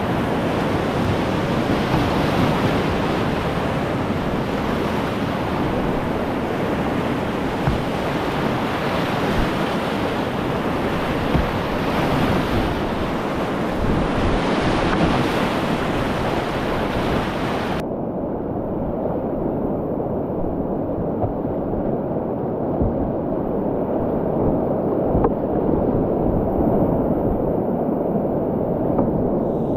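Rushing whitewater of a river rapid, a steady dense roar of water. About two-thirds of the way through the sound turns suddenly muffled.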